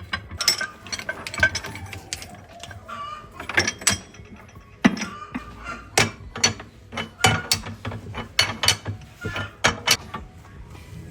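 Metal clanks and ratchet-like clicks from the press rods of a tyre vulcanizing press as they are set and tightened down on the tyre. The knocks come as an irregular string of sharp hits, several a second.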